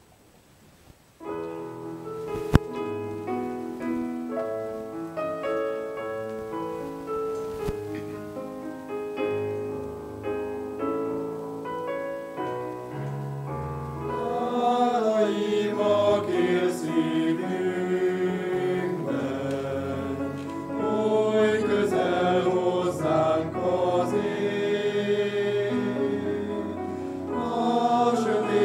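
A digital piano plays a hymn introduction, and a mixed choir of men's and women's voices comes in about halfway through, singing the hymn with the keyboard accompanying. A single sharp click sounds early in the piano introduction.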